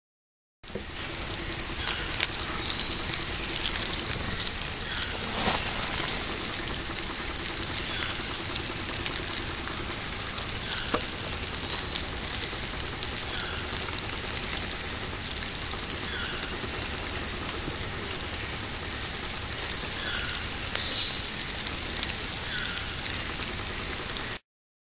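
Tropical rainforest ambience: a steady high-pitched insect drone, with short chirping calls every two seconds or so. There is one sharp click about five seconds in.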